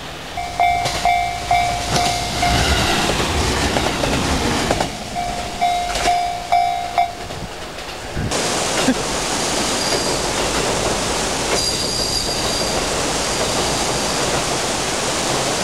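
Japanese railway level-crossing warning bell ringing in repeated electronic dings, about two a second, for the first seven seconds, as the train approaches. About eight seconds in it gives way to a steady rushing noise of a rocky mountain stream.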